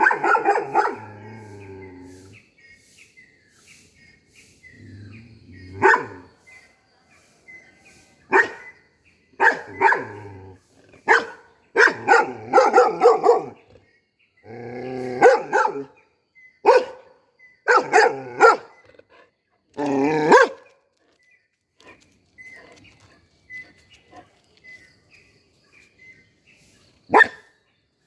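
A golden retriever barking: one bark at the start, another a few seconds later, then a long, irregular run of deep barks. After a quiet spell there is one last bark near the end.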